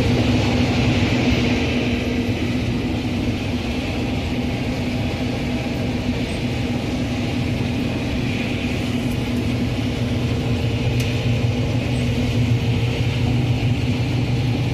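Gleaner combine harvester running steadily while harvesting corn: a continuous engine and machinery hum with a steady hiss above it.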